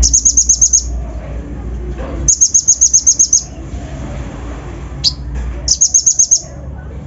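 Konin (kolibri ninja) sunbird singing: three quick runs of sharp, very high chirps, about eight or nine notes a second, the middle run the longest. A single falling whistled note comes about five seconds in, over a low steady rumble.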